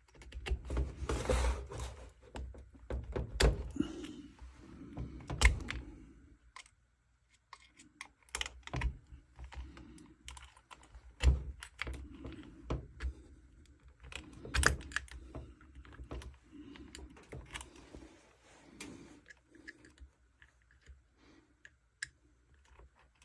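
Irregular clicks, taps and knocks of hands handling start capacitors and multimeter test leads, denser in the first few seconds and sparser after.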